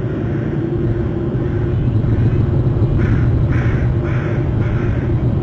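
Steady low rumble runs throughout. About three seconds in come four short, harsh bird calls, each about half a second apart.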